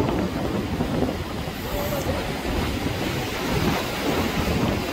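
Wind buffeting the microphone over sea waves washing and splashing against concrete tetrapods, a steady rushing noise without any rhythm.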